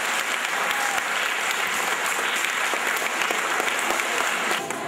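Audience clapping steadily, dying away near the end.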